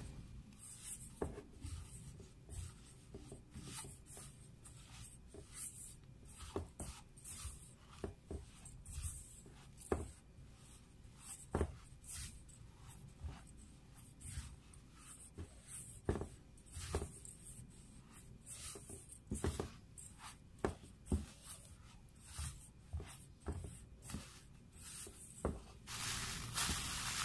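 Silicone spatula stirring dry rolled oats and chia seeds in a stainless steel bowl: irregular scrapes and light knocks against the bowl, one or two a second. Near the end a louder rustle of a plastic glove starts as the mixture is worked by hand.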